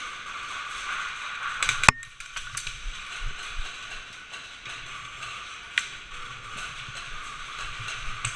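A quick cluster of sharp mechanical clicks about two seconds in, the last one the loudest, and one more click near six seconds, over a steady hiss.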